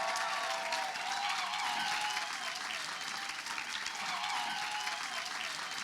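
Audience applauding steadily, with voices cheering over the clapping.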